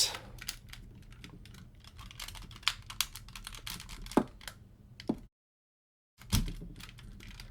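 Hard plastic parts of a Transformers Crossover Han Solo robot toy clicking and tapping as they are twisted and pulled, with a few sharper clacks. The sound cuts out completely for about a second just after the middle.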